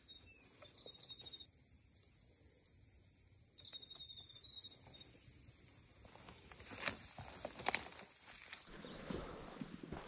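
Quiet scrub: a faint steady high hiss with a few faint high chirps. Two sharp clicks come about seven seconds in, then rustling footsteps through undergrowth near the end.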